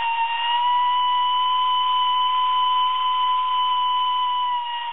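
A steam whistle blowing one long steady note over a faint hiss of steam.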